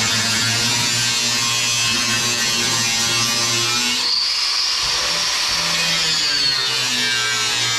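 Angle grinder with a cut-off wheel cutting through the sheet-metal seat platform in an old pickup's cab floor: a loud, steady whine. About four seconds in the sound changes, with a high whine that sinks over the next two seconds before the steady cutting sound returns.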